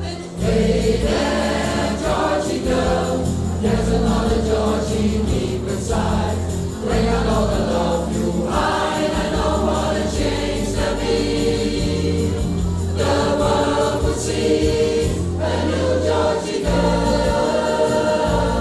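Music: a song sung by a group of voices over a steady bass accompaniment.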